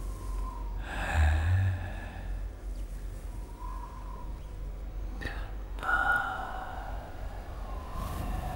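Two breathy gasps or sighs, the first about a second in and the second starting around six seconds, over a low steady hum.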